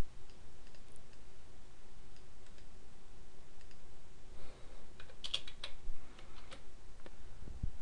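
Computer keyboard keystrokes and clicks, sparse at first, then a quick cluster of keystrokes about five seconds in and a few more near the end, as a registry line is copied and pasted in a text editor.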